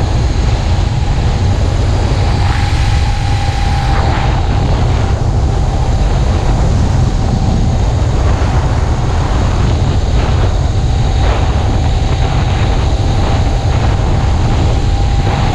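Small four-stroke engine of a motorized beach cruiser running steadily at cruising speed during its break-in, under heavy wind buffeting on the microphone.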